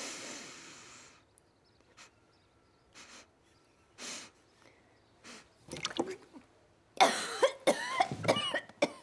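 A person coughing: a run of loud, hacking coughs from about seven seconds in, with a breathy exhale at the start and a few fainter coughs and throat sounds in between.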